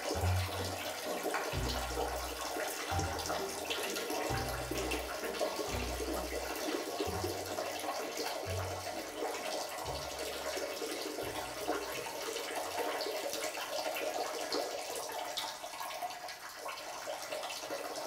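Steady rushing hiss of running water, with a low bass pulse repeating about every second and a half that stops about two-thirds of the way through.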